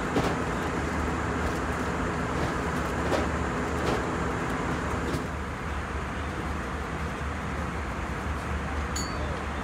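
Steady cabin noise inside an Airbus A321: an even drone of engines and rushing air with a low hum underneath. A few faint clicks are heard, and a brief high beep comes near the end.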